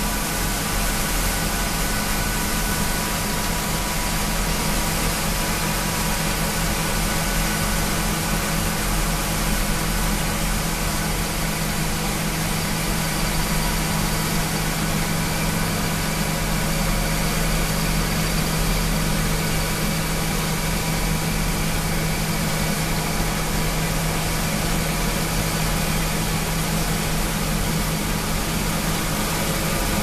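John Deere S670 combine running steadily while harvesting wheat: a constant low engine drone with machinery hum, a few steady whining tones and an even high hiss.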